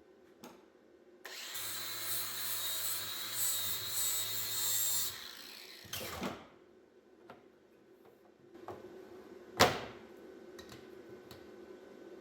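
Power tool running for about four seconds in a shop. A couple of seconds after it stops there is a knock, then a louder, sharp knock.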